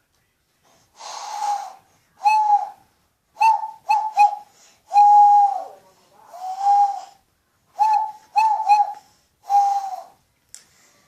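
Hand owl call: breath blown across the thumbs of cupped hands, giving about ten breathy hoots at one steady pitch, some held for over half a second and others short, in quick pairs and threes.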